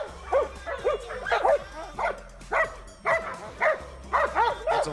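Belgian Malinois barking repeatedly at a decoy while escorting him in a Mondioring exercise: short barks, about two or three a second, each rising and falling in pitch.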